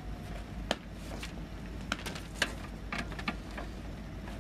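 A handful of short, sharp knocks and clacks as ammunition packing tubes are handled, the loudest about two and a half seconds in, over a steady low rumble.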